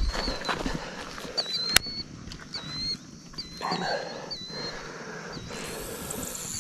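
A bird chirping again and again in short high notes, over outdoor background noise. A brief hiss comes in near the end.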